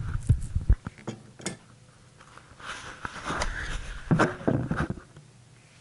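Someone moving about a small room with a handheld camera: a few low knocks and clicks in the first second and a half, then two spells of rustling and handling noise, the second one louder.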